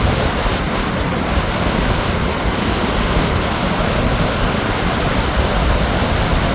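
Strong wind buffeting the microphone: a loud, steady, low rumble that swells and dips without pause.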